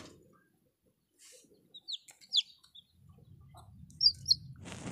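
Newly hatched country-chicken chicks peeping: a few short, high, falling cheeps about two seconds in and again about four seconds in, with low rustling from handling in the last part.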